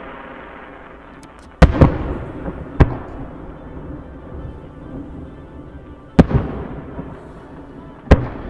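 Fireworks bursting overhead: five sharp bangs, two close together about a second and a half in, then single ones near three, six and eight seconds. Each bang dies away with a trailing rumble.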